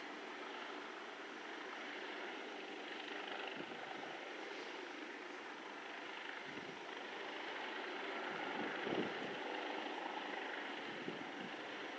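Steady, distant mechanical drone, with a few low gusts of wind buffeting the microphone.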